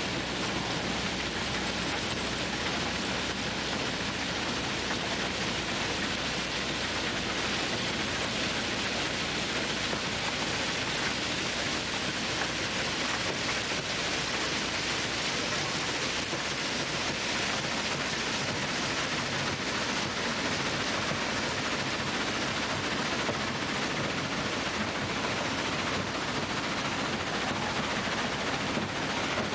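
Steady, dense rushing noise of a railway ballast cleaning machine digging out track ballast, stones churning and pouring as it works.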